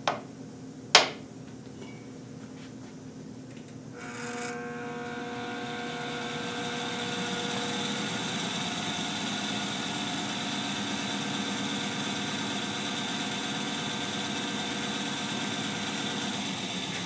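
Crankshaft balancing machine spinning a 454 big-block Chevy crankshaft fitted with bob weights and harmonic balancer, a balance check run to measure the imbalance that is left. Two sharp clicks come in the first second. About four seconds in, the drive starts and builds over a few seconds to a steady whir with a high whine.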